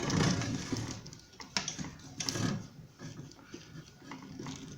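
Irregular clicks and light rattles of small metal parts as a screw is tightened with a small nut driver on a ceiling fan's blade bracket.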